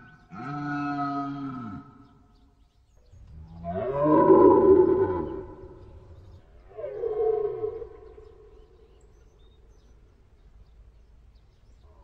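Red deer stag roaring, the rutting call: three deep, drawn-out bellows, the middle one the longest and loudest.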